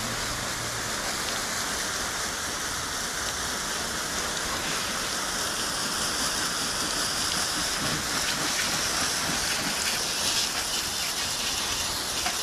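Garden hose spray nozzle spraying water over a motorcycle: a steady hiss and patter of water hitting the bodywork, front wheel and wet pavement.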